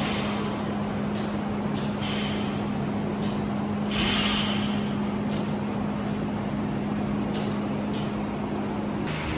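Steady machine hum over a noisy background, with a few scattered short clicks and a brief hiss about four seconds in.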